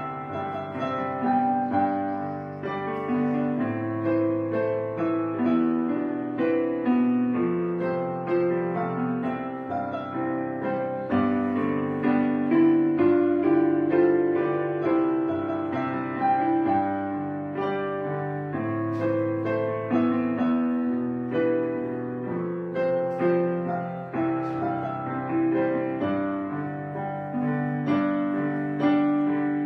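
Background piano music: a continuous run of held notes.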